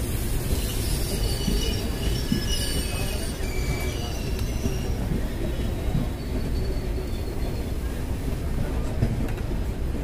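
Steady running rumble of two Indian Railways passenger trains passing each other on adjacent tracks, heard through an open coach doorway, with high-pitched wheel squeals over the first half.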